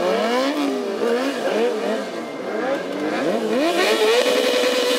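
Sport motorcycle engine revved up and down in quick rises and falls of pitch, then held at one steady high pitch from about four seconds in.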